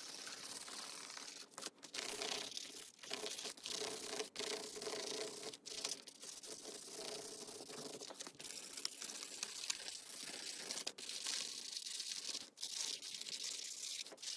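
Marker being scribbled back and forth across a paper plate: a steady scratchy rubbing, broken by short pauses every second or few as the strokes lift.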